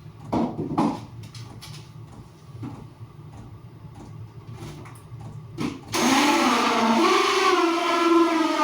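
A few handling clicks and knocks, then about six seconds in a power drill starts up loud, driving a hole cutter through the box, its motor whine wavering in pitch under load.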